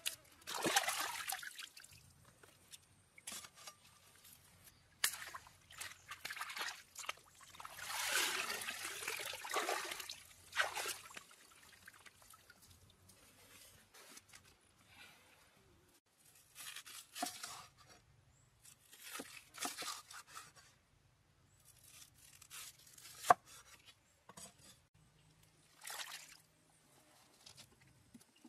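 Water pouring and trickling in several short bursts, with quiet gaps between them and one sharp knock late on.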